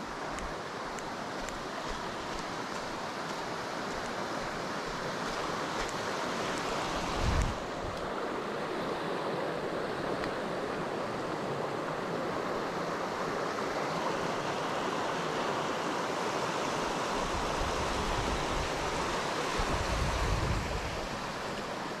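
Mountain stream running over rocks and through shallow riffles: a steady rush of water. Low rumbles of wind on the microphone come about seven seconds in and again for a few seconds near the end.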